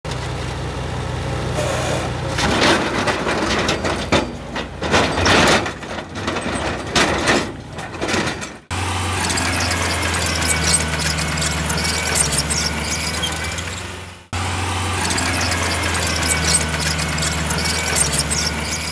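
Diesel engines of heavy earthmoving machinery running, with loud irregular scraping and squealing in the first half, then a steady engine hum with a wavering high whine. The sound cuts off abruptly and restarts twice, about 9 and 14 seconds in.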